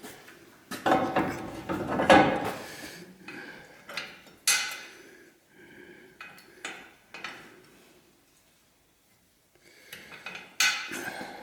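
Metal hardware clanking and scraping as it is handled, a run of separate knocks and rattles, then a short quiet pause and more clatter near the end.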